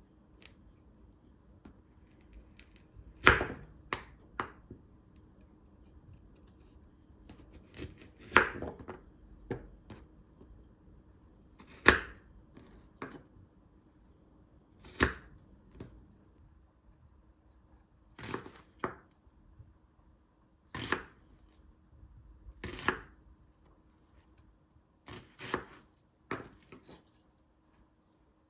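Kitchen utensils knocking and clicking: about sixteen sharp, separate knocks in small groups a few seconds apart, over a faint steady low hum.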